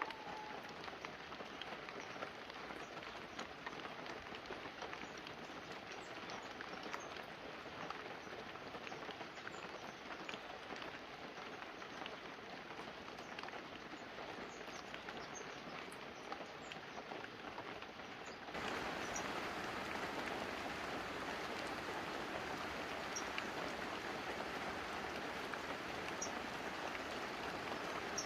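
Light, steady rain falling on banana leaves and a roof, with scattered single drops ticking over the hiss. About two-thirds of the way in the sound switches suddenly to a louder, denser rush of rain.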